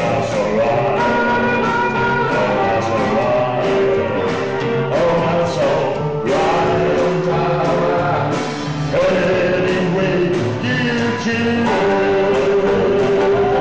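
Live rockabilly band playing a song: men singing over electric guitar, upright double bass and drums, with a steady beat.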